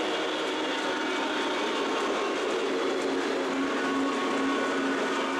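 O gauge model train rolling along its track, a steady rumble of metal wheels on rails with a faint hum.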